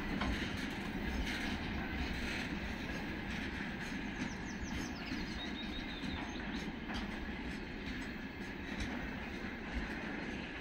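Loaded freight boxcars rolling past at speed: a steady rumble of steel wheels on rail with knocks over the rail joints, and a brief high squeal near the middle.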